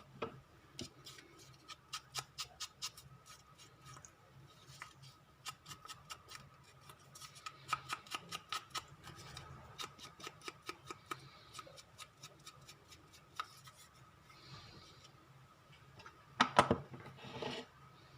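Scissors snipping paper in runs of quick short snips, with paper rustling; a louder burst of paper handling about sixteen seconds in.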